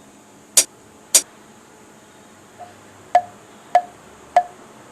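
Sound effects edited into a phone-made vlog: two short, sharp noisy snaps about half a second apart, then after a pause three quick clicks, each with a brief ping, about two-thirds of a second apart.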